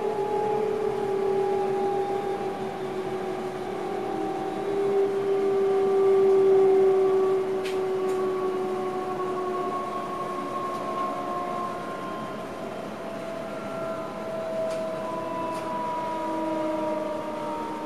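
Electric train's traction motor whine heard from inside the driver's cab, several tones sliding slowly down in pitch as the train slows. A few faint clicks sound partway through.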